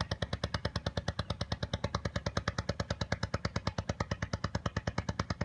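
Small open boat's engine running with a fast, even beat of about eleven pulses a second.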